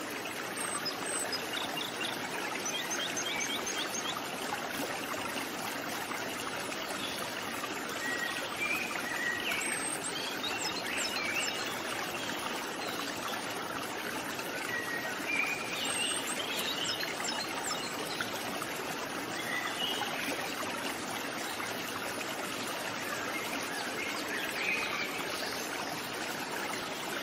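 Steady rush of flowing water, like a stream, with small birds chirping now and then over it.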